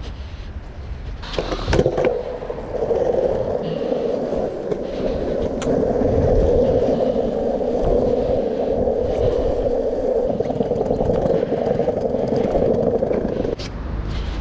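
Longboard wheels rolling on asphalt: a steady rolling noise that starts about two seconds in and cuts off suddenly near the end as the board stops.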